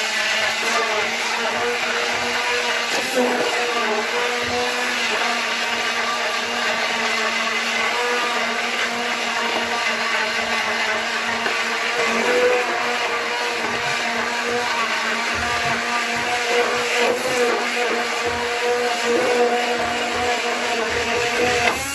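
Electric stick (immersion) blender running without a break, puréeing fish soup in a pot: a steady motor hum with the blade churning the liquid.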